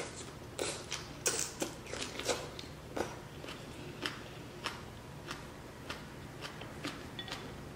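A person eating ramen noodles and bok choy: biting into and taking in a mouthful of noodles in the first couple of seconds, then chewing with irregular small wet smacks and clicks.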